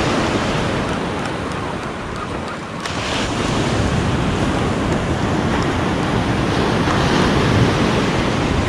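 Small ocean surf breaking and washing up the sand, swelling again about three seconds in, with wind rumbling on the microphone.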